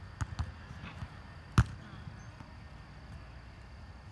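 A volleyball being struck by hands: a few light knocks, then one sharp slap about a second and a half in.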